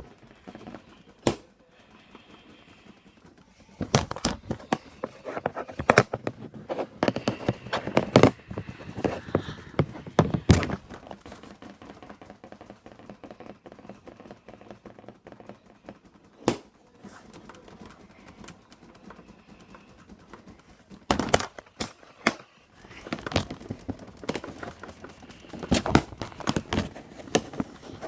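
A drawer knocking and rattling in irregular bursts of quick taps and thunks, with quiet stretches in between.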